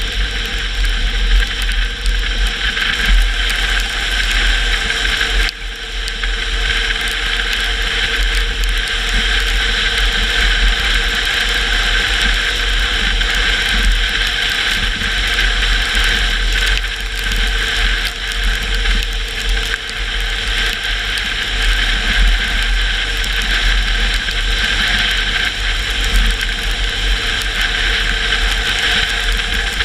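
Car driving along a canyon road in rain and snow: steady engine, tyre and wind noise over a deep rumble, with a brief dip about five seconds in.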